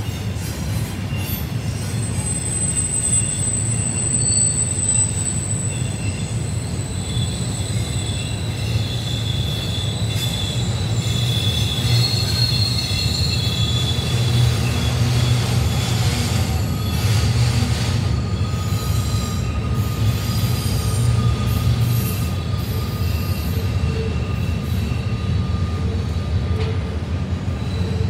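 Intermodal freight train rolling steadily past with a constant low rumble, its wheels squealing against the rails in several thin, high, held tones.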